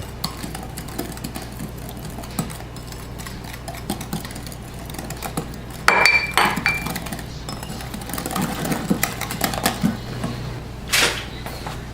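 A utensil stirring in a mixing bowl as flour is worked into a lemon-bar filling, with irregular small clicks and scrapes. About six seconds in there is a louder clink that rings briefly, and near the end a louder knock.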